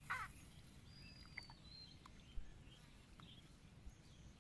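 Faint outdoor ambience with a short bird chirp at the very start and a thin, high whistled bird note about a second in. A few soft ticks or taps follow, the sharpest about two and a half seconds in.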